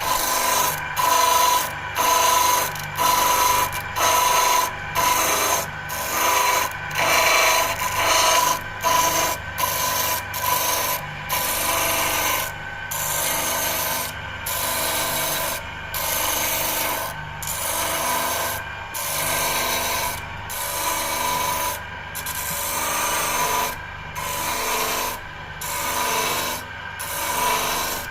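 Electric disc sander running with a steady hum while a beech wood piece is pressed against the spinning disc over and over, grinding a bevel onto its edge. The grinding comes in repeated passes about a second apart, which become longer and slower in the second half.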